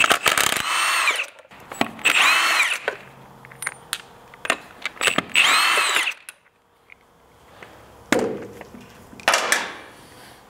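Impact wrench spinning lug nuts off a wheel in three runs of about a second each, its whine rising and then falling in pitch each time, with clicks between and two shorter, duller noises near the end.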